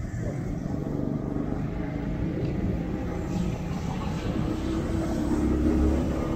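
Motorcycle riding through city streets: a steady engine drone over low road and wind rumble, the engine note growing a little louder about five seconds in.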